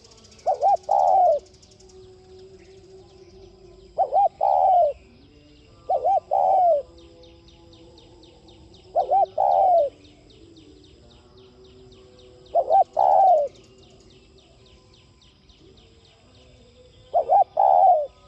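Spotted dove cooing its song: six phrases a few seconds apart, each two short coos followed by a longer one.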